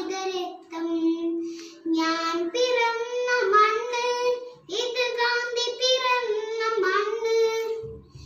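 A young girl singing solo in phrases of held notes, with short breaths between them.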